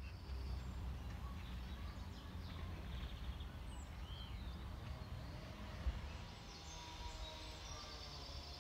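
Outdoor ambience: small birds chirping and calling now and then over a low, steady rumble.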